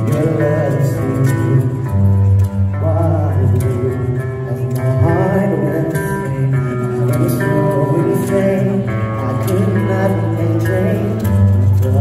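Live band music: a hollow-body electric guitar over a steady bass line, with a man singing into a microphone.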